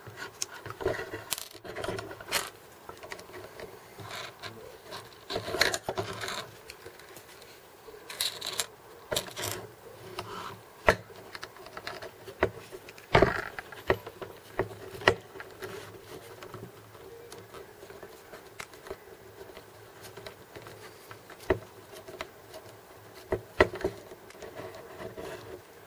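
Irregular small clicks, taps and scrapes of an M3 bolt and nut being handled and worked into a Rostock MAX 3D printer's effector by hand, with a few sharper clicks.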